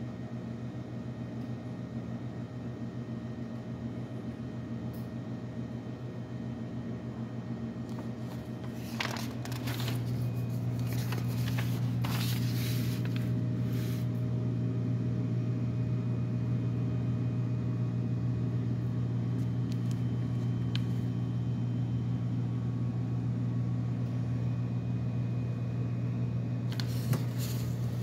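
A steady low machine hum that gets louder about ten seconds in. Sheets of paper rustle as they are handled, around nine seconds in, again between twelve and fourteen seconds, and near the end.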